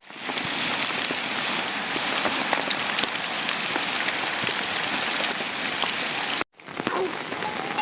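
Heavy rain falling steadily, a dense patter of drops striking a surface. About six and a half seconds in, the sound drops out for a moment, then resumes.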